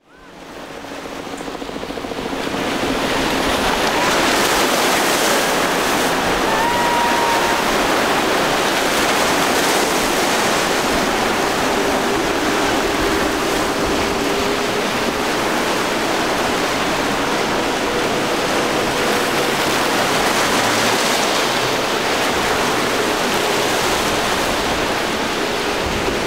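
Rough surf and waves churning and breaking, with the faint steady drone of boat outboard motors underneath. The sound fades in over the first few seconds.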